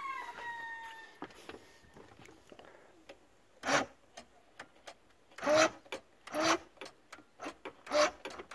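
Electric starter of a V4 Johnson outboard tried in five short bursts, each well under a second, without the engine catching. The owner thinks the battery has been run down.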